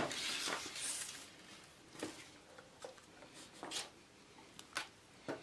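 A soft rustle, then a few faint light taps and ticks scattered through the rest, from hands handling wire and the fan heater's heating element on a worktable.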